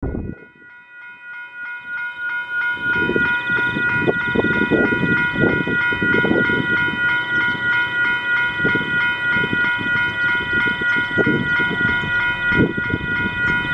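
Railway level crossing warning bell ringing in rapid, even pulses as a train approaches. A low, uneven rumble sets in about three seconds in.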